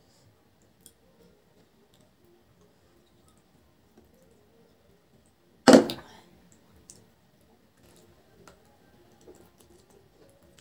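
Faint, scattered wet clicks of fingers working rice and curry on a plate and of chewing. About halfway through comes one loud, short knock that fades quickly, as the matar paneer is tipped from its bowl onto the plate of rice.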